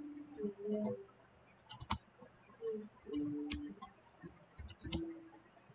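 Typing on a computer keyboard: irregular runs of quick key clicks with short pauses between them.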